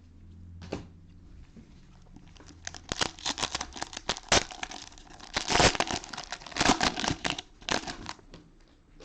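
Plastic cellophane wrapper of a Panini Mosaic football cello pack being torn open and crinkled by hand: a dense run of sharp crackles that starts about two and a half seconds in and stops shortly before the end.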